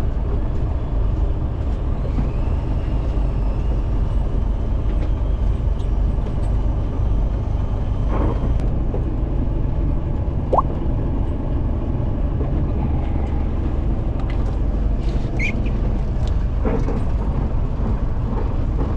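Steady low rumble of a fishing boat's engine running, with a few faint clicks and knocks through it.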